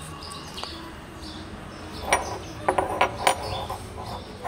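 A quick run of sharp metallic clicks and clinks, about two to three and a half seconds in: a rusty steel gear from a Caterpillar 120B grader's control box being handled on concrete.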